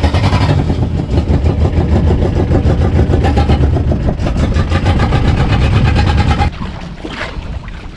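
Small boat engine running loud with a fast, even pulse; its noise falls away sharply about six and a half seconds in.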